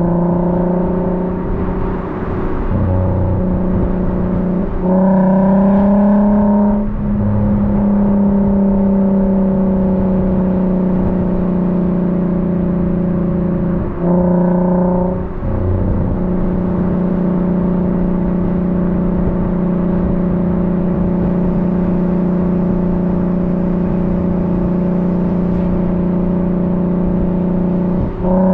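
Car engine running at a steady speed under way, its note rising briefly about five seconds in, again about halfway, and once more at the end, each time settling back to the same drone.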